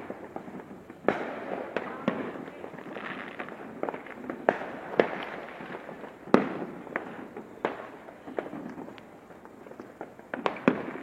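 Fireworks and firecrackers going off in an irregular string of bangs and pops, each trailing an echo, with the loudest bang about six seconds in.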